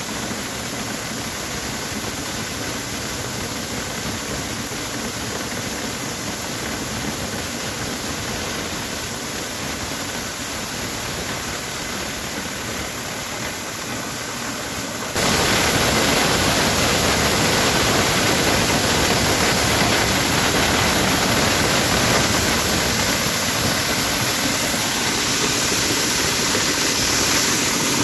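Motorized corn sheller running steadily, with shelled kernels pouring from its chute into a sack. About halfway through, the machine noise abruptly becomes louder and stays that way.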